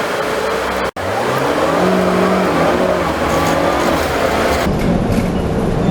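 City bus engine running under way, heard from inside the passenger cabin, its pitch shifting up and down in steps as the bus drives on. The sound cuts out for an instant about a second in.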